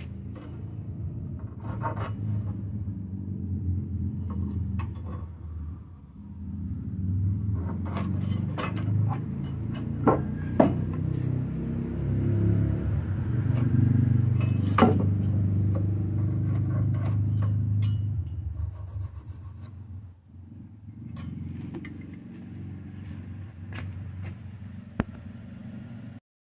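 Wooden pieces knocking and scraping as they are handled, over a low steady rumble that swells in the middle and cuts off suddenly near the end.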